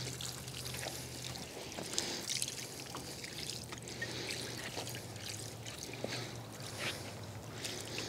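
Water trickling from the spout of a plastic watering can onto freshly sawn wooden boards, faint and steady.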